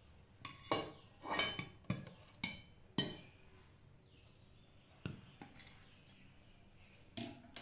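Metal kitchenware clinking and knocking: a steel cake tin gripped with metal tongs is lifted out of an aluminium pressure cooker and set down on a stone counter. A quick run of clinks and scrapes comes in the first three seconds, then single knocks about five seconds in and near the end.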